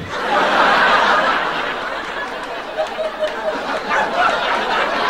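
Audience laughing at a stand-up comedian's one-liner, swelling quickly in the first second and then carrying on a little lower.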